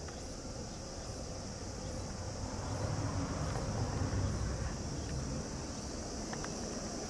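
Insects droning in a steady high-pitched chorus, with a low rumble of wind on the microphone swelling for a couple of seconds midway.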